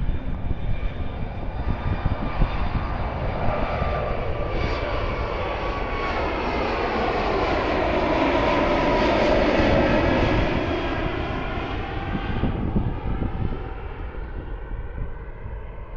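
Twin-engine jet airliner climbing out after takeoff and passing by. The engine roar builds to its loudest around nine seconds in, then fades away over the last few seconds.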